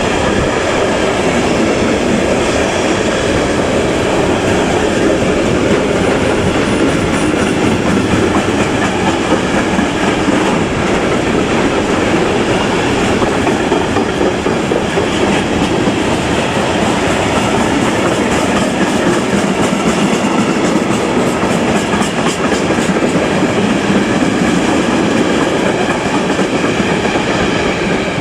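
Train passing by on the track: a loud, steady rumble of wheels on the rails.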